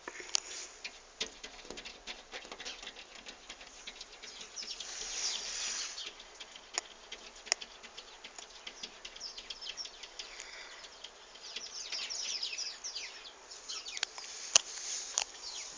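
Cat pawing at window glass as if digging, its claws scratching and squeaking on the pane in many short strokes, with a few sharp taps and two longer flurries of scratching.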